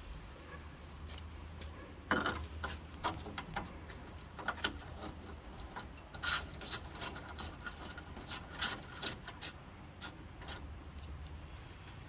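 A set of keys jangling, with small metal clicks and rattles in irregular bursts starting about two seconds in, as keys are handled at a door lock cylinder.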